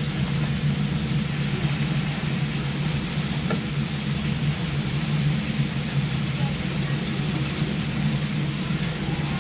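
Thin slices of pork belly frying and sizzling in a pan: a steady hiss over a constant low hum, with a few faint clicks.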